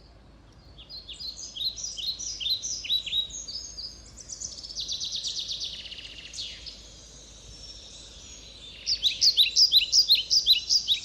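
Wild birds singing: runs of quick high chirps and trills over a faint outdoor background hiss, getting louder near the end.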